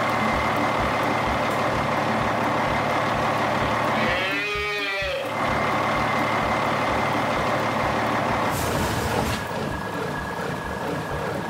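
Truck engine sound effect running steadily with an even low pulse, a short rising-and-falling pitched call about four seconds in, and a brief hiss of air brakes near the end as the truck stops.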